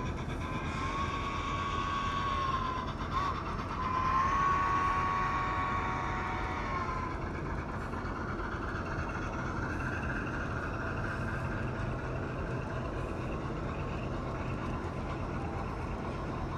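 An HO scale model locomotive's horn blowing a long blast, a short toot, then a longer blast that ends about seven seconds in. This is the long-long-short-long grade-crossing signal. A steady rumble of model trains running on the layout continues throughout.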